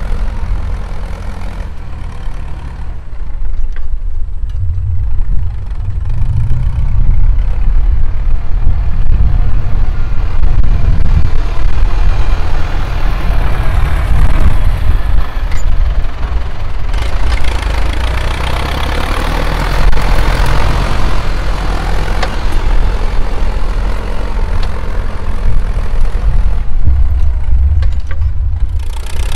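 Ford 6610 tractor's four-cylinder diesel engine running loud through a loud exhaust, pulling while plowing. It gets louder about three seconds in, then swells and eases.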